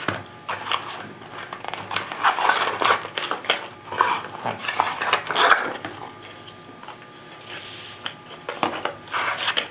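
Unboxing handling: rustling and crinkling of plastic zip bags, a foam sheet and paper booklets being lifted out of a small cardboard box, with irregular crackles and light taps.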